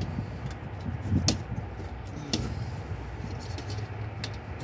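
A few light clicks and knocks as a plastic fuel pump module is pushed and wiggled down into the fuel tank opening, over a low steady rumble.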